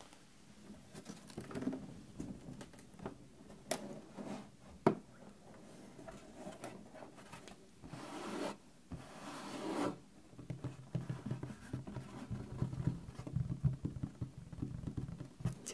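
Hands handling a wooden case close to the microphone. A couple of sharp knocks come about four and five seconds in, then two swells of rubbing. From about ten seconds a fast run of fingertip tapping and scratching on the wood begins.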